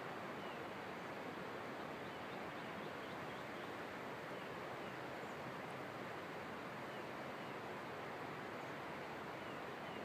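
Steady outdoor rustling hiss with faint, brief bird chirps scattered through it.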